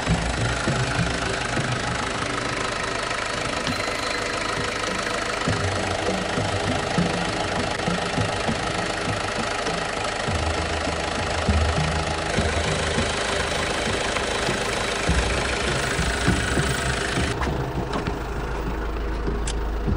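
Mazda MPV's WL-T 2.5-litre turbodiesel idling steadily with a diesel clatter. The sound turns duller near the end.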